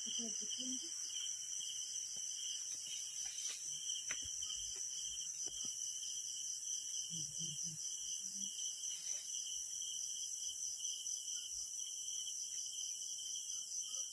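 Night insects, crickets or katydids, chirring in a steady chorus at two pitches, the lower one pulsing rapidly. Faint low murmuring is heard near the start and again about halfway.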